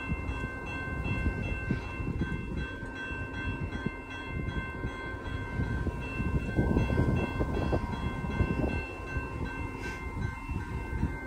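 Railroad grade-crossing warning bell ringing steadily as the crossing gates come down, over a gusty low rumble.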